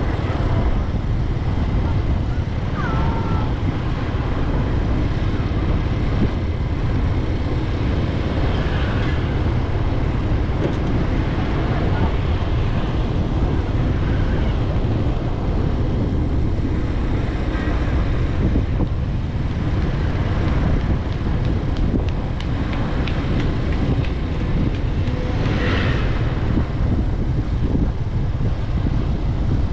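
Wind on the microphone and road noise while riding along a street with motorbike and car traffic: a steady low rush that does not let up.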